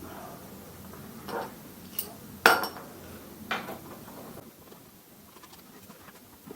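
A few short metallic clinks and knocks as tools and metal parts are handled on a workbench, the loudest about two and a half seconds in.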